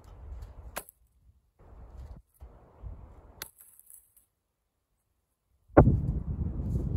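Split firewood pieces being handled at a chopping block, knocking sharply twice, about a second in and again at about three and a half seconds. Near the end a loud knock is followed by a steady low rumble of wind on the microphone.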